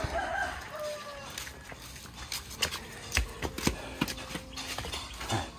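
A few sharp knocks at an uneven pace, most of them between about two and four and a half seconds in, over a low background rumble, with a brief voice near the start.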